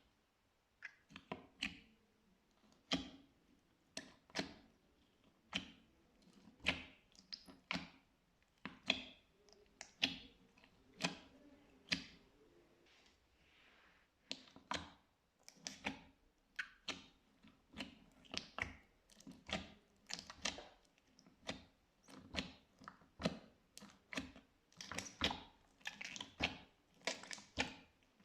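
Slime being worked by hand, giving a long run of short clicks and pops at irregular spacing, about one or two a second.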